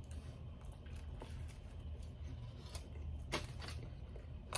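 A person chewing a sandwich: a few faint crunches and mouth clicks over a low steady hum.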